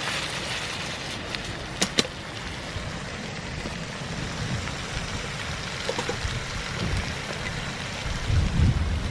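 Bacon sizzling steadily in a frying pan over a wood-burning camp stove, with two sharp clicks about two seconds in.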